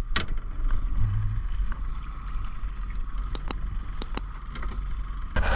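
Small boat's outboard motor running under way, with a steady low rumble and four sharp clicks in two pairs, about three and four seconds in.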